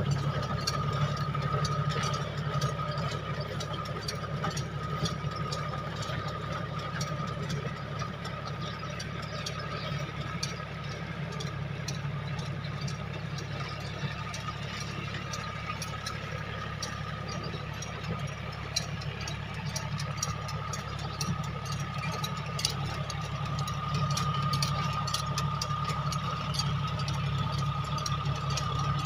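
John Deere tractor's diesel engine running steadily under load while it drives a rotavator through hard, dry soil, with a steady high whine over the engine hum and scattered clicks and rattles.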